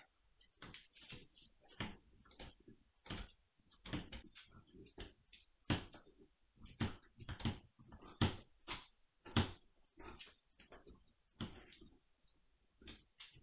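Vizsla puppies knocking about their pen: irregular clattering knocks and rattles, one to a few a second, as they bump the metal wire panels and bowls.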